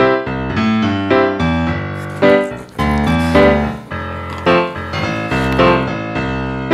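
Background music led by piano, a steady run of struck notes that ring and fade, one after another about every half second.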